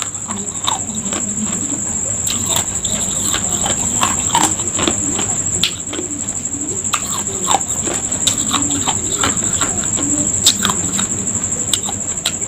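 Ice cubes crunched and chewed in the mouth close to the microphone: an irregular run of crackling crunches. A steady high-pitched whine runs behind.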